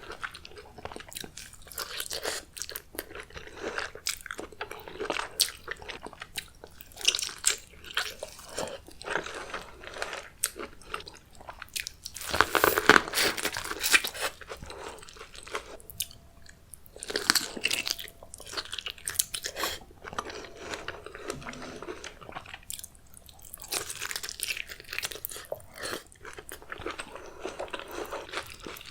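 A person eating seafood close to the microphone: chewing with many short, repeated crunches, loudest in a dense run about twelve to fourteen seconds in.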